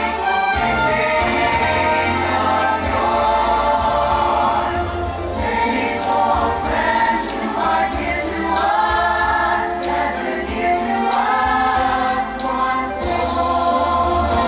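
Choir singing over orchestral holiday music with a steady bass line: the show's soundtrack.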